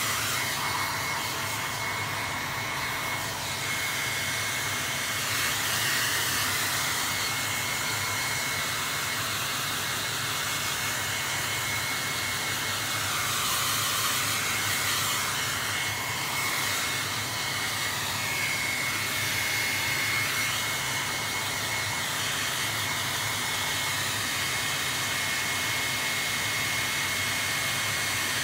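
Handheld hair dryer blowing steadily with a thin, steady high whine over the airflow. It is drying freshly sprayed clear leather lacquer.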